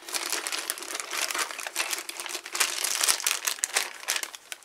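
Clear plastic bag crinkling and crackling as it is handled and opened to take out a plastic model-airplane fuel tank. The crackling is dense and irregular and thins out near the end.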